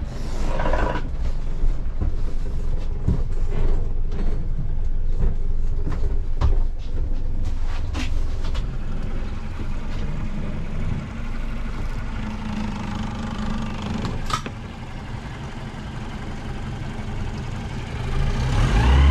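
Suzuki 115 hp four-stroke outboard motor idling with a steady low hum, with a few knocks from the boat. Near the end the engine note rises and it runs louder, as when the outboard is revved or put in gear.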